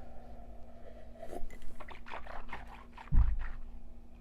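Close-miked mouth and eating sounds: scattered small wet clicks, with a dull low thump about three seconds in.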